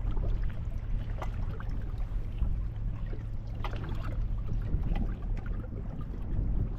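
Boat on the water: water splashing and trickling against it over a steady low rumble, with scattered short splashes.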